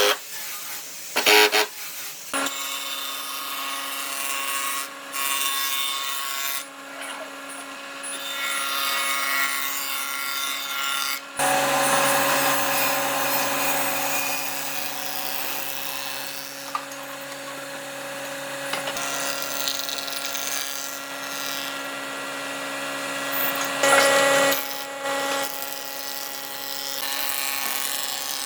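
Woodworking power tool running steadily while cutting or sanding wood, with a motor note throughout and a lower motor note joining about eleven seconds in. A few sharp knocks come in the first two seconds.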